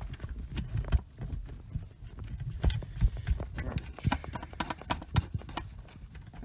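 Irregular clicks, taps and knocks from hands handling and connecting a cable and connector on a workbench.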